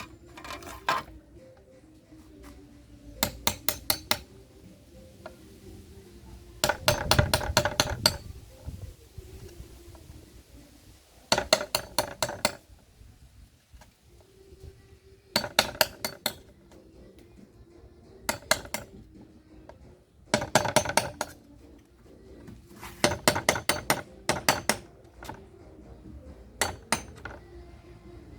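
Rapid metallic tapping or clinking in short bursts of several quick strikes each. The bursts come about ten times, separated by pauses of one to three seconds.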